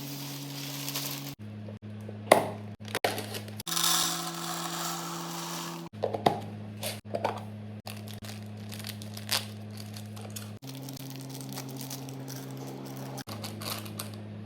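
Food packaging and containers being handled during a kitchen restock: plastic crinkling and tearing with sharp clicks and knocks, the loudest about two seconds in. Under them runs background music of low held notes that change every few seconds.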